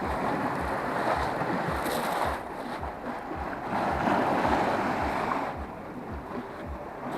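Sea surf washing against rocks at a grotto, swelling twice and easing in between.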